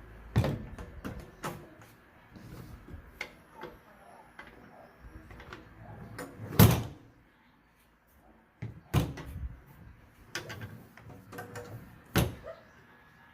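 Steel ammo-style box being handled: its lid and latch opening and shutting, with sharp metal clanks and bangs. There are four loud bangs, about half a second in, midway, about nine seconds in and near the end, with lighter clicks and knocks between them.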